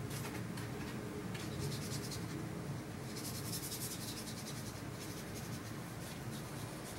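Paintbrush scrubbing and dabbing watercolour on paper: short scratchy strokes in bursts, with a quick run of them from about three to four and a half seconds in. A steady low hum runs underneath.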